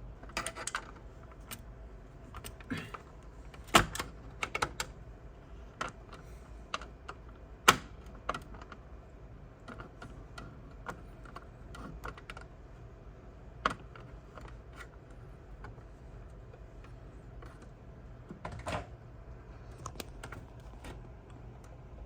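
Scattered sharp clicks and taps of a Torx screwdriver and small screws being worked out of the screen mounting of a Midas Pro2 mixing console, with two louder knocks about four and eight seconds in.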